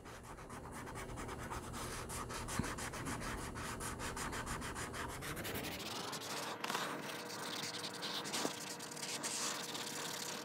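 Acrylic paint pen nib rubbing on sketchbook paper in continuous rapid back-and-forth strokes as a sky is coloured in.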